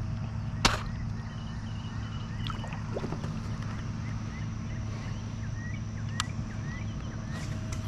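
Steady low hum with many faint, short bird chirps and two sharp clicks, one early and one about six seconds in.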